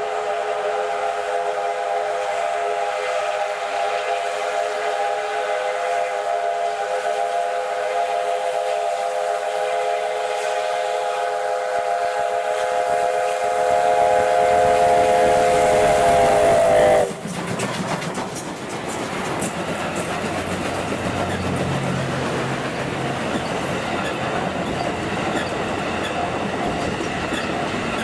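Steam whistle of the C57 steam locomotive in one long, loud blast of several steady tones that sags slightly in pitch and cuts off abruptly about seventeen seconds in, while the approaching engine's running grows louder. The locomotive and its passenger coaches then roll past close by, a rushing noise with the clatter of wheels on the rails.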